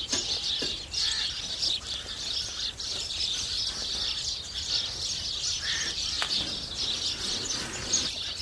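A flock of house sparrows chirping, many overlapping chirps without a break.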